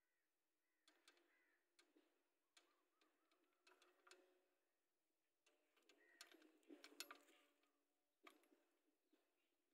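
Near silence, with faint scattered clicks and rubbing as hands press a new oil-level sensor into the rubber grommet of a Yamaha 100cc two-stroke's oil tank; the handling is busiest a little past the middle.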